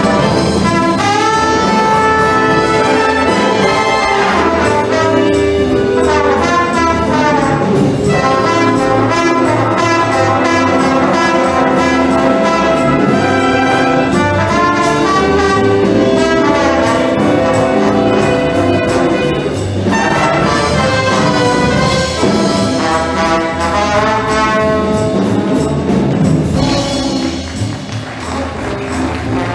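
A brass and wind band playing a swing-style arrangement, with trumpets and trombones holding chords over a steady low beat. It grows quieter near the end.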